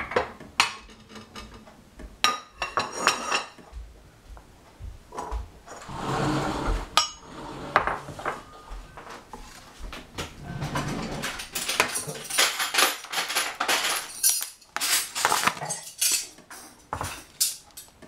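Chef's knife chopping cucumber on a plastic cutting board: irregular knocks of the blade on the board, coming thick and fast in the second half, with a longer scraping sound about six seconds in.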